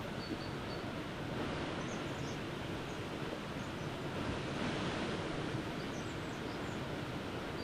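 Steady outdoor background noise in a forest, with a few faint short high chirps scattered through it.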